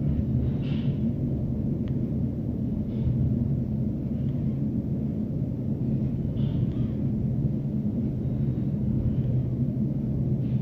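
Steady low kitchen hum, with a few faint scrapes as a steel pan of fried onion-tomato masala is tipped and emptied into a pressure cooker of dal.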